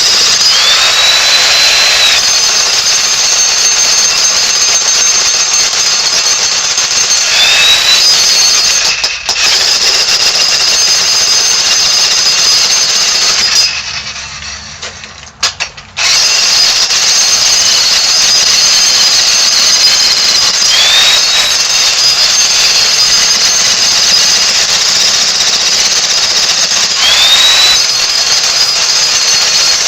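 Jackhammer hammering continuously and loudly, stopping briefly about nine seconds in and again for about two seconds in the middle. A whine rises several times as it runs.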